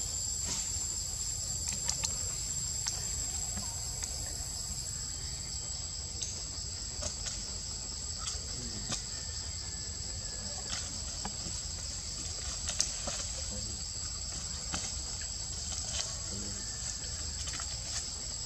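A steady, high-pitched chorus of insects trilling without a break, with scattered faint clicks.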